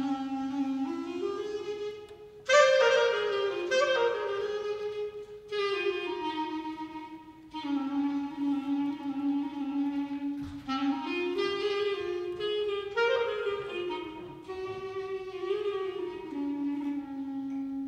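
Dance music: a slow solo melody on a woodwind instrument, long held notes gliding between pitches, with new phrases entering with a louder attack every few seconds.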